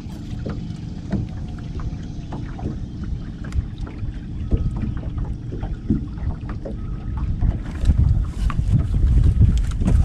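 Wind rumbling on the microphone aboard a small fishing boat, with scattered small knocks and clicks. It gets louder near the end.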